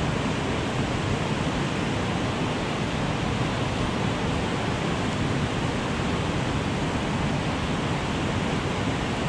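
Steady, unbroken rush of whitewater churning through the rapids below a dam outflow.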